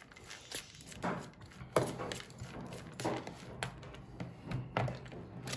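Metal fork scraping grated beetroot off a plastic hand grater and clicking against it and the plastic box below: a string of short, irregular scrapes and clicks.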